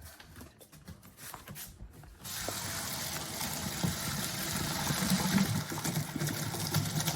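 Hot pasta water poured from the pot through a colander into the sink, a steady gushing that starts suddenly about two seconds in, after a few small clicks.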